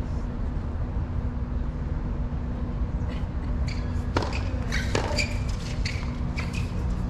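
Tennis ball strikes and bounces on a hard court: a string of short, sharp knocks that start about three seconds in and come roughly every half-second to second, over a steady low hum.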